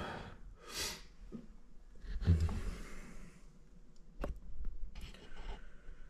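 A person breathing out and sighing, with a few faint handling ticks and one sharp click a little after four seconds in.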